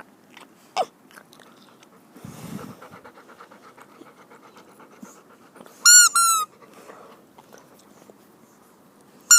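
Puppy panting softly, then two short high-pitched squeals about six seconds in.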